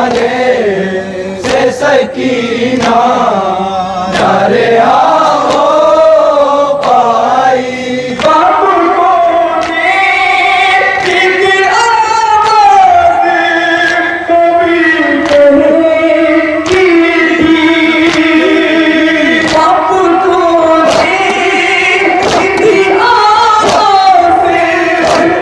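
A group of men chanting a nauha (Shia lament) into microphones, with rhythmic chest-beating (matam) striking along with it.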